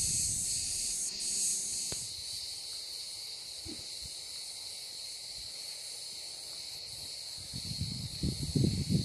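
Steady, high-pitched shrilling of an insect chorus, with irregular low rumbling near the end.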